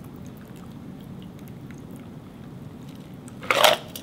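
Cocktail strained out of a stainless steel Boston shaker through a Hawthorne strainer into a rocks glass. Near the end comes a brief loud clatter as the metal shaker and glass are set down on the stone countertop.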